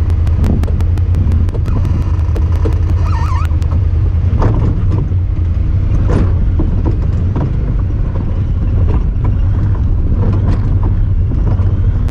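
Honda Talon 1000R side-by-side driving off-road, its 999 cc parallel-twin engine and drivetrain giving a steady loud low rumble with occasional knocks. A rapid run of clicks in the first few seconds comes from the camera, not the vehicle.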